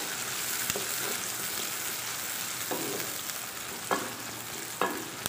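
Sliced onions sizzling in hot oil in an aluminium pot while a wooden spoon stirs them, with a few short scrapes of the spoon against the pot.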